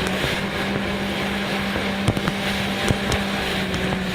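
Jet ski engine running at a steady speed, a constant drone under rushing water and wind noise, with a few sharp knocks.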